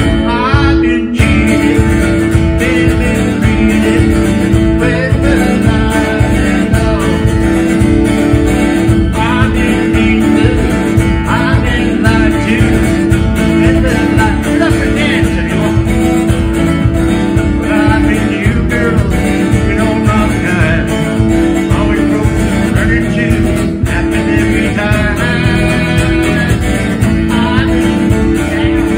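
A man singing a country-style song while strumming an acoustic guitar in a steady, even rhythm.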